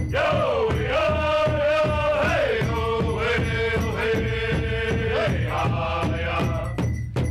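Native American drum group singing together in long held notes over a steady, even beat struck on a large shared powwow drum.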